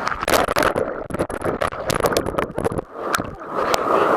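Whitewater rushing and splashing close to the microphone, with many sharp knocks and splashes.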